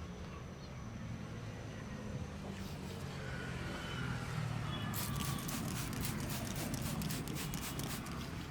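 Steady low street hum, with a quick run of light, sharp clicks or taps, about five a second, starting about five seconds in and lasting about three seconds.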